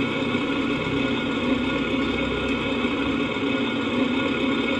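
Electronic sound module in a Tamiya Scania 770S RC truck playing a simulated open-pipe Scania V8 engine idling steadily through the model's small speaker, just after its start-up sound.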